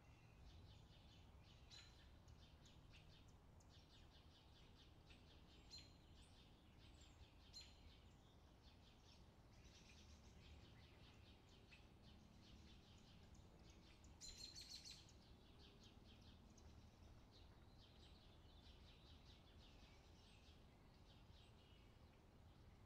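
Near silence: quiet room tone with faint, scattered high ticks and short chirps, with a small cluster about two-thirds of the way through.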